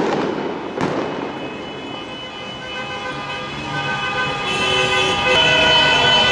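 A firework bang about a second in, then many car horns honking at once from the street below, several steady tones together that get louder from about halfway.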